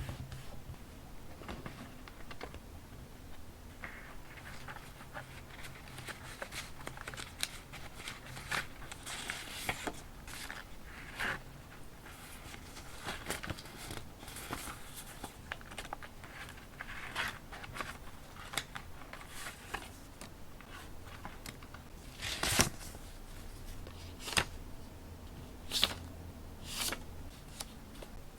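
Paper being handled at close range: scattered rustling and crinkling, with a few sharper, louder snaps in the last few seconds.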